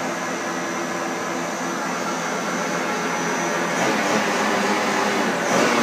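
Harrison VS450 CNC lathe running, its spindle turning a metal workpiece in the chuck: a steady machine whine and hum that grows a little louder about four seconds in.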